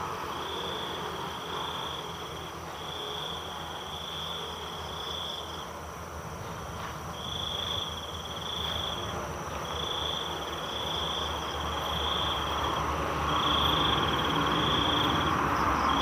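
Night insects trilling: a high trill about two seconds long repeats again and again with short gaps, over a steady fainter high hum. A rustling hiss grows louder near the end.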